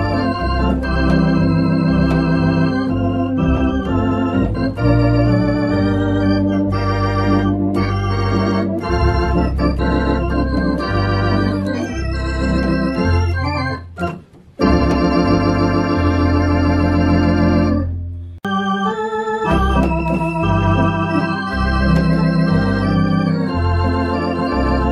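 Baldwin electronic organ played with both hands: sustained chords and melody over a steady bass line. The music drops out briefly twice, about fourteen and eighteen seconds in.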